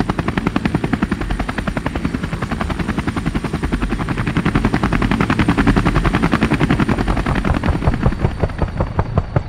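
Helicopter rotor blades chopping at a rapid, even beat, slightly louder in the middle.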